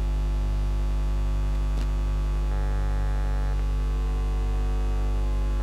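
Steady electrical mains hum: a low, even buzz with a stack of overtones that does not change.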